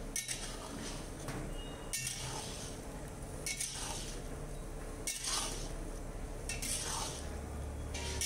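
Long metal spatula scraping and clinking against a metal kadai, stirring fried bread pieces in sugar syrup, a stroke about every second and a half.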